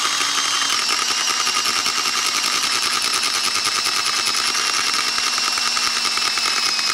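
Cordless drill running continuously under load, drilling the head off a stripped bolt, with a steady high whine over a fast chatter; its pitch sags slightly as it goes.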